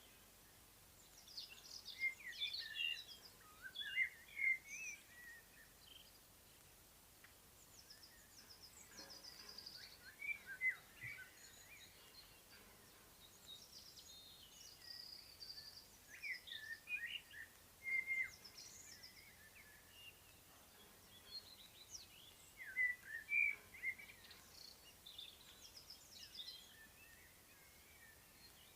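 Several songbirds singing in spring, phrases of chirps and warbles coming in bursts every few seconds over a faint steady outdoor hiss.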